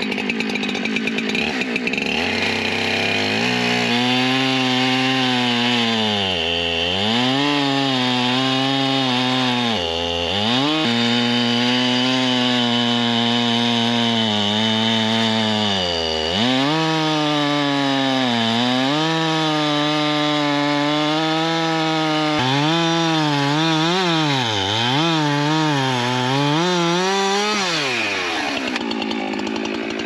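Gas chainsaw running at full throttle cutting into a log. Its pitch drops each time the chain bites into the wood and climbs back, several times; near the end it dips quickly a few times in a row, then winds down.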